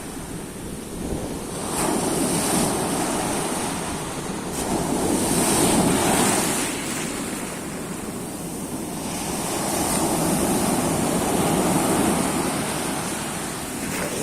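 Sea waves breaking and washing up the shore, the noise swelling and fading in slow surges about every four seconds, with wind buffeting the microphone.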